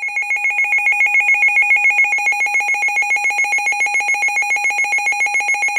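Emergency Alert System attention tone: a loud electronic warble that flips rapidly between two high pitches over a steady lower tone, pulsing several times a second.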